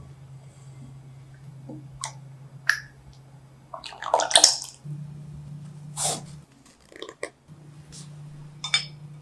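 Thickened cream poured from a saucepan into a cheesecloth-lined bowl, splashing loudly for about a second near the middle. Short handling sounds of cloth and utensils come several times over a steady low hum.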